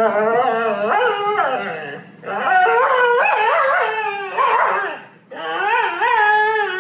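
A husky 'talking' back in three long, wavering howl-like whines that slide up and down in pitch. It is protesting at being made to get up off the sofa.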